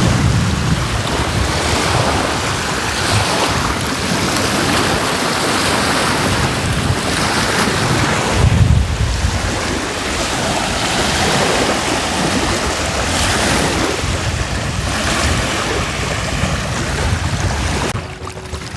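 Small waves washing onto a lagoon shore in repeated surges every couple of seconds, with wind buffeting the microphone.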